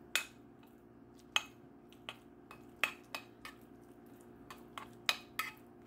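Metal spoon clinking and scraping against a bowl while eating, about ten sharp, irregular clinks, over a steady low hum.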